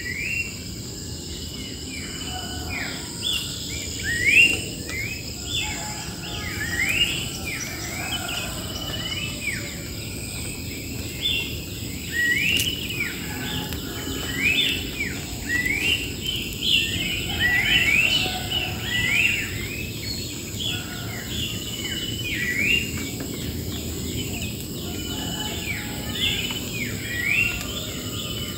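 Wild birds calling with many short, quick chirps that repeat and overlap, over a steady, high-pitched drone of insects.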